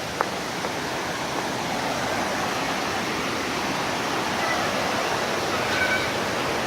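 Steady rushing noise of a large waterfall, with one short sharp click about a quarter second in.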